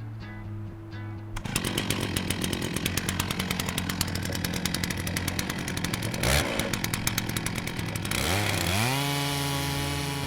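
Chainsaw ripping lengthwise through a log along a TimberJig guide, starting about a second and a half in with a dense, rapid rattle. Near the end the engine pitch rises and holds high.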